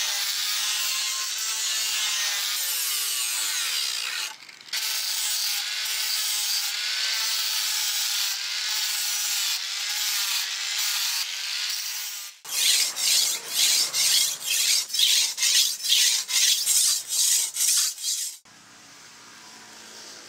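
Angle grinder with a green sanding disc grinding a steel rebar sword, a steady rasping with a wavering motor whine. About twelve seconds in it turns to a rhythmic rasping, about two strokes a second, which stops suddenly near the end.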